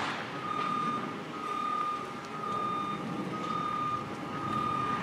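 Electronic alarm beeping at one steady high pitch, about once a second, each beep about half a second long, over steady outdoor background noise.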